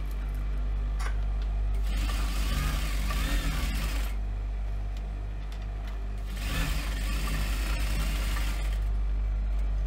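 Industrial flatbed sewing machine stitching faux leather in two runs of about two seconds each, one starting about two seconds in and another about six and a half seconds in, over a steady motor hum.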